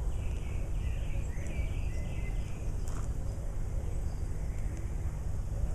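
Birds chirping a few short calls over a steady low outdoor rumble, with one sharp click about three seconds in.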